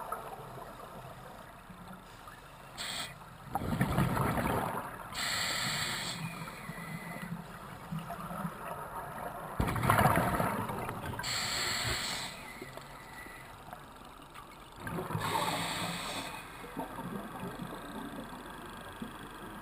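Scuba diver breathing through a regulator underwater: three breaths about six seconds apart, each a rumbling rush of exhaled bubbles together with the hiss of the regulator.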